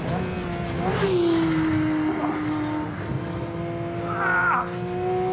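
Porsche 911 GT3 flat-six at high revs under hard acceleration, heard from inside the cabin on a track lap. About a second in the revs drop sharply at a gear change and then climb steadily. A short tyre squeal comes near the end.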